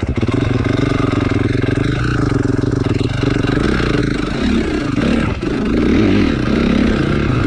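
Dirt bike engine running as the bike is ridden up a grassy slope. The note holds steady at first, then rises and falls with the throttle from about four seconds in.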